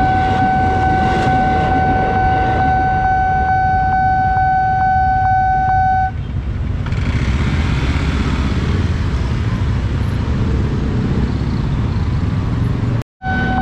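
Railway level-crossing alarm sounding a steady electronic tone with a quick regular tick, about two or three a second, over the rumble of an electric commuter train passing. The alarm cuts off about six seconds in, leaving motorcycle and car traffic noise. Near the end the sound drops out for an instant and the alarm starts again.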